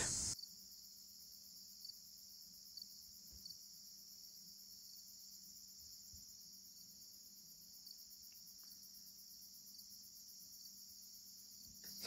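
Faint, steady high-pitched chirring of crickets.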